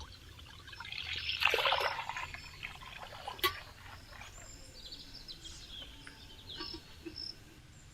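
Small birds chirping in short high calls through the second half, after a brief rush of noise about a second in and a single sharp click.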